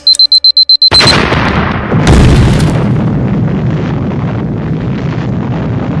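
Rapid high electronic beeping, about eight beeps in under a second, cut off by a loud explosion sound effect. A second blast follows about a second later, then a steady rumble of the blast.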